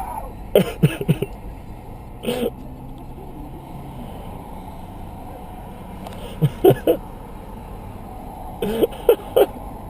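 Short bursts of laughter in clusters of two or three, over the steady noise of a moving car's interior.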